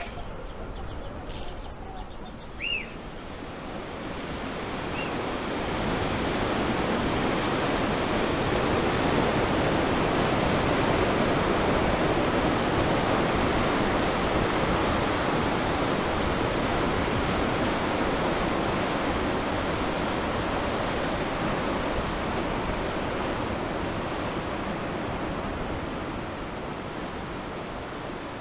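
Ocean surf, a steady rushing noise that swells a few seconds in and slowly eases toward the end. A brief faint bird chirp is heard near the start.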